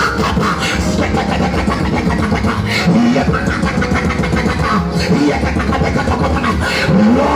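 A congregation praying aloud all at once, many voices overlapping, with one voice rising and falling in pitch above them and music playing underneath.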